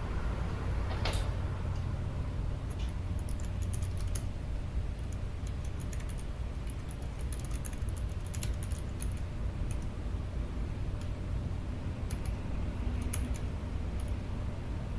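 Keychron K7 low-profile mechanical keyboard being typed on: irregular runs of light key clicks, with a short pause near the middle, over a steady low hum.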